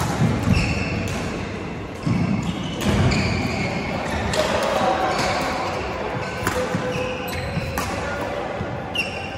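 Badminton doubles rally in a large sports hall: sharp racket strikes on the shuttlecock, several a few seconds apart, mixed with short squeaks of court shoes on the floor.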